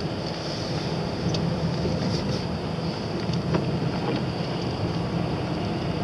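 Car driving on a wet road, heard from inside the cabin: a steady low drone of engine and tyres with an even hiss of tyres on the wet surface.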